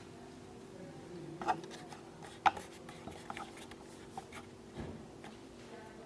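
Scattered light clicks and taps from handling the iMac's magnetic power-cable connector, the sharpest about two and a half seconds in, over a faint steady hum.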